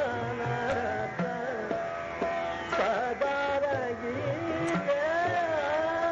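Hindustani classical vocal performance in Raag Marwa: a male voice sings long held notes joined by slow glides, over a tanpura drone, with tabla strokes marking the rhythm.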